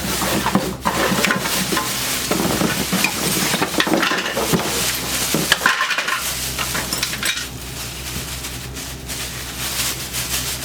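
Hands rummaging through a box of sewing machine parts: continuous crinkling and rustling of paper and plastic, with small clinks and clatters of loose parts.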